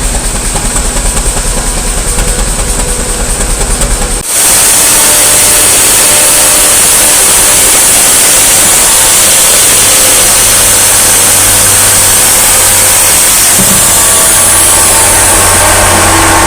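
Steam traction engine running with a pulsing beat. About four seconds in, a much louder, steady rushing noise with a high hiss cuts in and holds.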